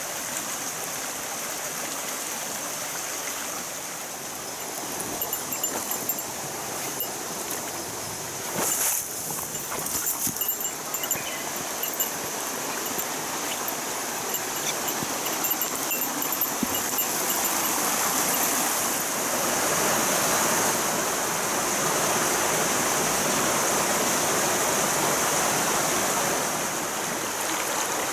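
Shallow mountain stream running over rocks: a steady rush of water that grows louder in the second half. A few short knocks and rustles come partway through.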